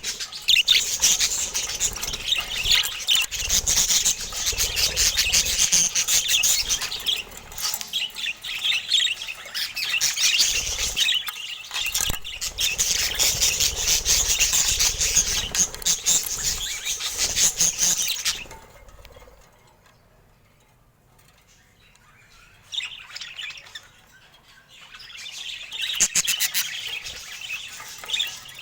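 Several budgies chattering and chirping in a dense, continuous warble. The chatter falls away for several seconds after about two-thirds of the way through and picks up again near the end.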